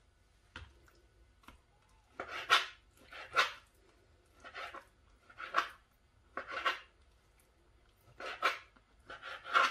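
Kitchen knife slicing raw chicken breast on a plastic cutting board: a short scraping cut about once a second, some strokes with a double scrape as the blade is drawn back and forth and meets the board.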